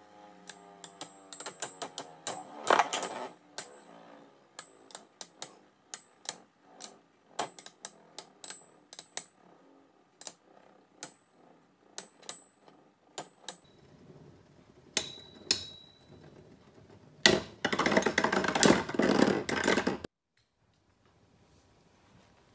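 Two metal-wheeled Beyblade spinning tops, Dark Bull H145SD and Poison Serpent SW145SD, clashing in a plastic stadium, played at double speed: a long run of sharp clicks with a faint metallic ring. Near the end comes a loud, dense rattle of about three seconds that cuts off abruptly.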